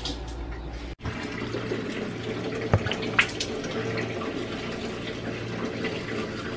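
Teeth being brushed with a manual toothbrush close up: a wet, steady scrubbing that starts about a second in, with a few sharper scrapes along the way.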